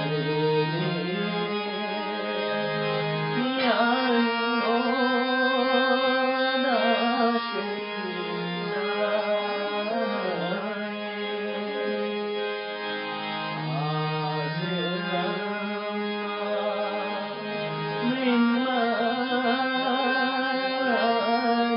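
Harmonium playing held reedy chords and melody while a voice chants or sings a slow devotional line over it.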